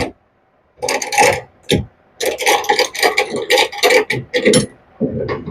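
Scraping and rubbing of a homemade wooden boom sheet traveler as it is swivelled back and forth with the boom. It comes in short rasping strokes, quickening to about four a second in the middle.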